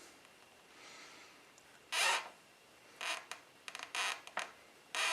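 Torque wrench ratchet clicking in short rasping bursts, four or five strokes, the loudest about two seconds in, as it tightens a brake rotor bolt.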